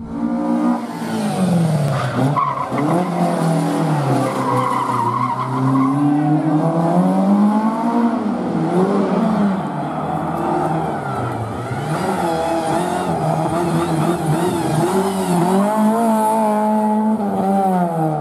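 Rally hatchback's engine revving hard and falling back again and again as the car accelerates and brakes between slalom cones, with tyre squeal in the turns.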